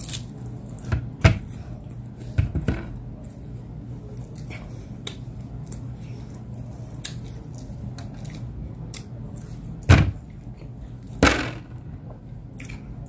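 Hand-fed eating of roast meat and rice: chewing and mouth sounds, with a few short sharp clicks and knocks, the loudest two about ten and eleven seconds in, over a steady low hum.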